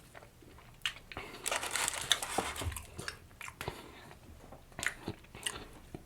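A person biting and chewing a sauced chicken sandwich dipped in ranch, with scattered sharp clicks and a busier stretch of chewing about a second and a half in.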